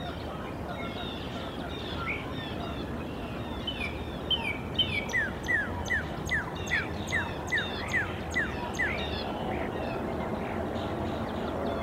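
A songbird sings a run of about a dozen whistled notes, each sliding down in pitch, at about three a second, starting about five seconds in. Other small birds chirp scattered around it over steady background noise.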